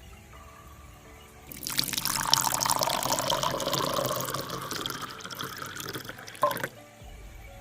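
Water being poured into a container for about five seconds, stopping with a short clink near the end.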